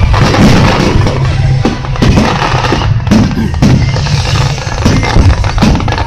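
Finale barrage of aerial fireworks: shells bursting in rapid, irregular succession, several bangs a second over a continuous low rumble.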